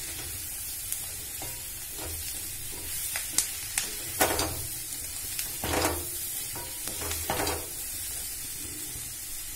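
Mushrooms, capsicum and onion sizzling in butter in a wok, with a spatula stirring and scraping them around the pan in several strokes over the steady sizzle. The vegetables are being sautéed for about a minute.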